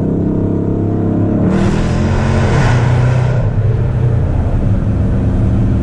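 Car engine and exhaust pulling hard under acceleration for about two seconds, starting about a second and a half in, with a loud rush of noise over the engine note, then easing back to a steady cruise.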